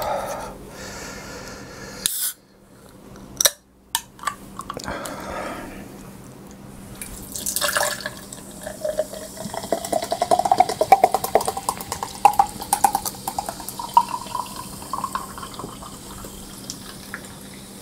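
Fanta Lemon soda poured into a glass, fizzing, the pitch of the pour rising as the glass fills. A few sharp clicks and a short hiss come first.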